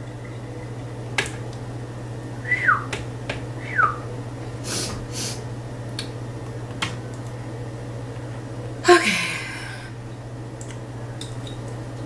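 A spoon clicking and scraping in a plastic food processor bowl of horseradish paste, with two short squeaks. About nine seconds in comes a sharp cough, brought on by the heat of the raw horseradish. A steady low hum runs underneath.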